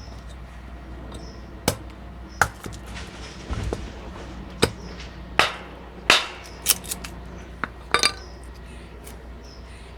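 Small hatchet chopping into a green oak spoon blank: a series of sharp, irregular strikes, roughly one a second.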